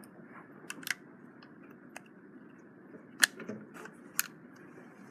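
Several sharp gunshot cracks at uneven intervals, the loudest about three seconds in, with fainter shots in between.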